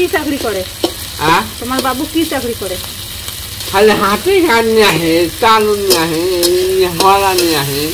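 Food frying and being stirred in a pan, with a person's voice over it.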